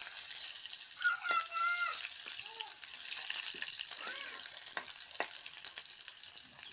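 Chopped onions frying in hot oil in a kadai: a steady sizzle, with the scattered clicks and scrapes of a metal ladle stirring them.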